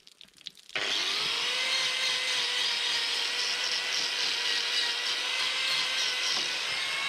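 Electric angle grinder switched on under a second in, whining up to speed and then running steadily as its disc grinds down a cow's hoof during hoof trimming.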